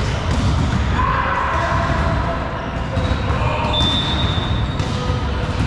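Balls bouncing and thudding on a hard sports-hall floor amid echoing hall noise, with several sharp impacts scattered through it.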